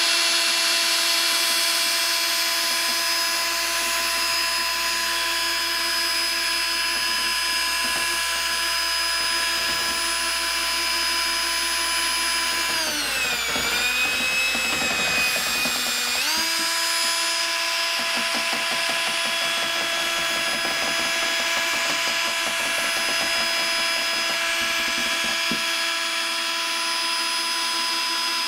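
Cordless drill spinning a paddle mixer through epoxy resin in a plastic bucket, a steady motor whine. About halfway through the drill slows and its pitch drops for a few seconds, then it comes back up to speed.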